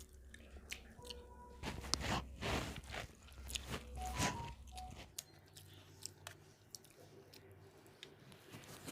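A person chewing mouthfuls of mutton biryani, with wet mouth clicks all through, louder for a stretch in the middle.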